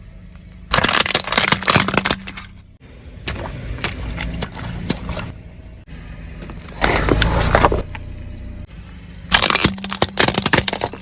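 Objects crunching and cracking under a car's tyres in four separate bursts, with abrupt cuts between them. A steady low engine hum runs underneath.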